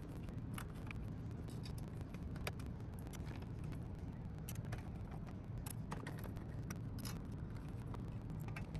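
Small Torx screwdriver turning screws back into a sheet-metal radio chassis: scattered faint metallic clicks and light scrapes, over a steady low hum.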